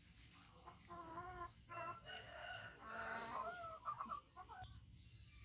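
A rooster crowing: one long, wavering crow that starts about a second in and runs for roughly three seconds.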